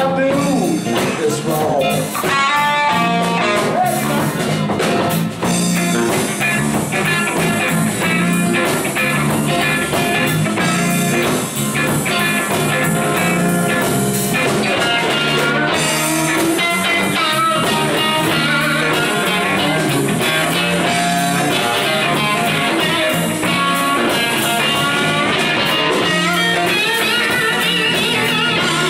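Live blues band playing an instrumental passage: an electric guitar lead with bending, wavering notes over electric bass and a drum kit keeping a steady beat.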